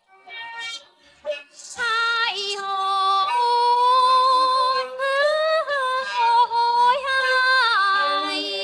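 Woman's solo singing voice from an isolated vocal track of a Thai song, starting out of silence with a few short phrases, then long held notes with vibrato and sliding ornaments between pitches. No instruments are heard.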